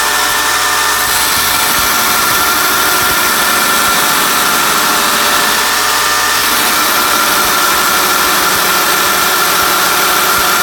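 Home-built 2x72 belt grinder, driven by a 1.5 HP 3600 RPM motor at about 4,750 feet per minute, grinding a 3/8-inch hot-rolled steel rod on a coarse 36-grit zirconia belt: a loud, steady grinding hiss over the whine of the belt and motor. The hiss is brightest from about a second in until a little past the middle.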